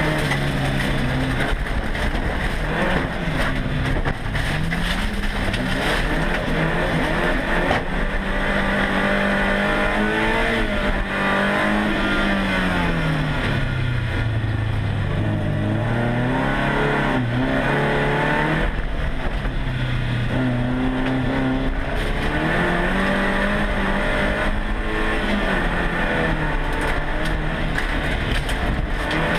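Race car engine heard from inside its cabin, revving up and down through gear changes and corners. The revs fall lowest around the middle, then climb again.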